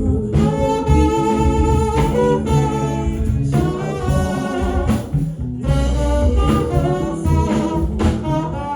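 Music with held melody notes over a bass line.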